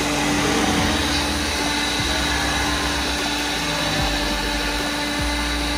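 A small electric motor running steadily, with an airy rushing noise and a constant low hum.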